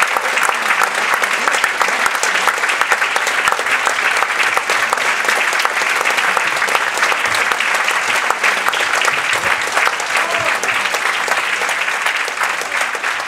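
Theatre audience applauding steadily, a dense wash of clapping that begins to thin near the end.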